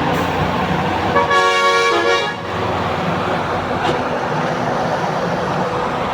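A vehicle horn sounds once, a single toot of about a second, over steady road traffic noise.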